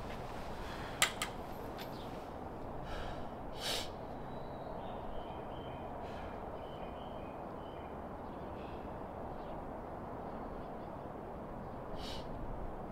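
Quiet outdoor ambience: a steady low background hiss, with a sharp click about a second in, a few brief rustles, and faint short high chirps in the middle.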